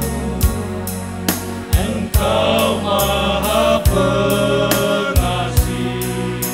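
A men's vocal group singing a gospel worship song over a backing track with a steady drum beat, about two beats a second.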